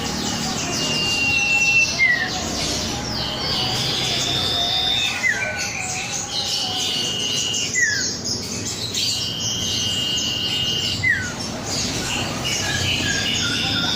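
A cipow (sirtu) songbird singing loudly and without pause. Long, level, high whistles, each held about a second, alternate with short falling notes every couple of seconds, over a busy run of chattering notes.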